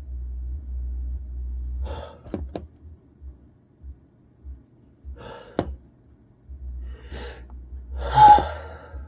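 A man's gasping breaths as a sneeze builds: short, sharp intakes every second or two, the loudest and most voiced one near the end.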